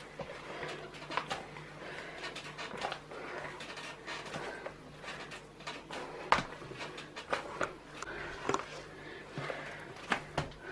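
Hands kneading a large mass of bread dough: irregular slaps, pats and soft squelches, with a steady low machine hum underneath.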